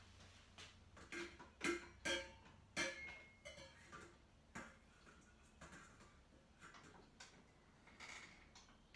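Faint clinks and knocks of kitchen bowls being handled and set down, a few with a short ringing tone. The loudest come between about one and three seconds in, then sparser, softer taps.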